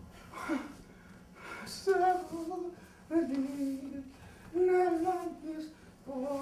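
A woman humming a slow tune without words, in phrases of about a second each made of held notes, with short pauses between them.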